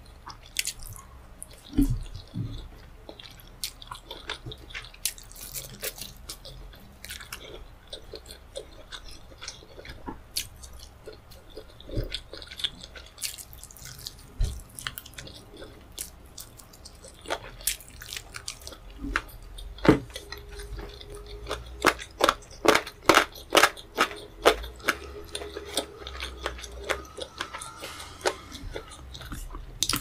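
Close-miked eating: wet chewing of rice and tomato stew, a wooden spoon scooping from the plate, and bites into a fried chicken drumstick. In the second half there is a run of loud, quick crunchy clicks, about three a second.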